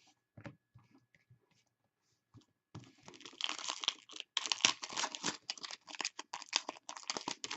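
Foil hockey-card pack wrapper being torn open and crinkled by hand: a few faint clicks, then from about three seconds in a dense run of crackling and tearing.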